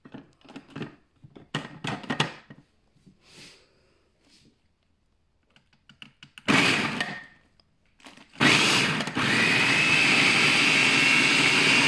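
Hamilton Beach food processor chopping broccoli florets. First come a few clicks of plastic as the lid is fitted, then a brief burst of the motor about six and a half seconds in. From about eight seconds the motor runs steadily with a high whine as the blade chops.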